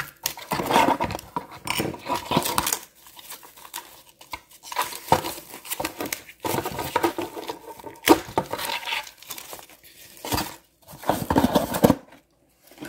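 Rustling and crinkling of a white packing wrap and cardboard box as a plastic model well car is pulled out and unwrapped, in irregular bursts with a few sharp clicks and knocks of plastic on cardboard.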